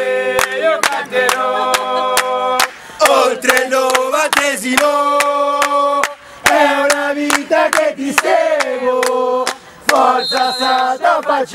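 A group of football supporters singing a terrace chant in long held notes, with short sharp beats between the lines.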